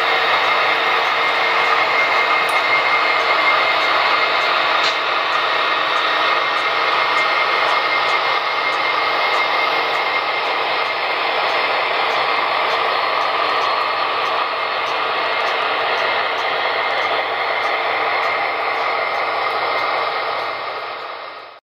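HO-scale model diesel locomotives running together in a consist, their onboard sound units playing diesel engine sound as a steady running noise. It cuts off suddenly near the end.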